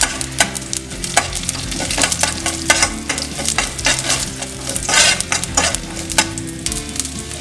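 Mustard seeds, cumin and urad dal frying in hot oil and ghee for a tempering: a steady sizzle with many short sharp pops as the seeds splutter. A louder burst of sizzling comes about five seconds in.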